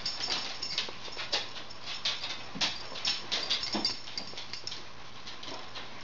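Dogs' claws clicking and pattering on a hardwood floor as the dogs move about, a rapid irregular run of sharp ticks that thins out after about four and a half seconds.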